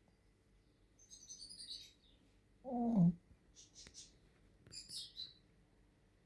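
Sleeping dog's small, high squeaky noises, with one short groan that falls in pitch about three seconds in.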